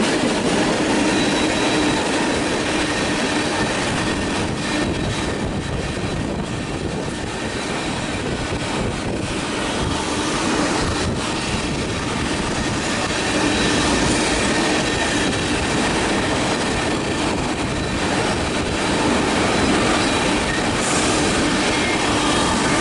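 Train rolling past at close range: a continuous, loud rumble of rail cars on the track, with thin, steady, high-pitched wheel-squeal tones over it.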